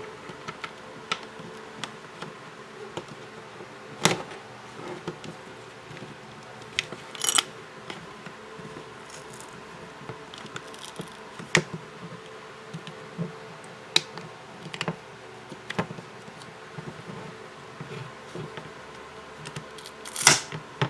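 Scattered sharp clicks and snaps as a pry tool works under a phone's glued back cover and the adhesive gives way, the strongest about four seconds in and near the end. A steady faint buzzing hum runs underneath.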